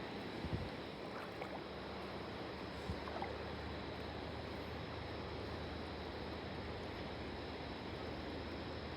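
Steady rush of flowing water, with a few faint knocks in the first few seconds.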